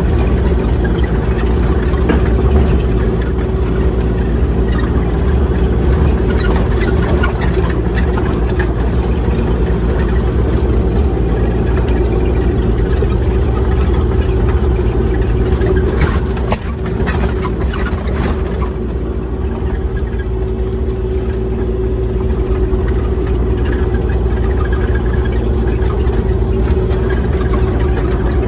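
Excavator engine running steadily, with a cluster of sharp knocks about two-thirds of the way through, after which it runs a little quieter.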